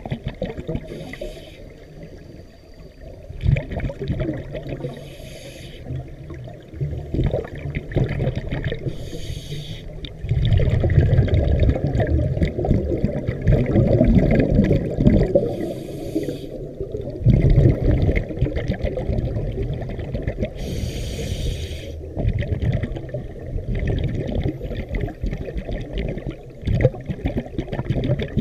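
Scuba regulator breathing underwater: a short hiss of inhalation every few seconds, and rumbling bursts of exhaled bubbles between them, heaviest near the middle.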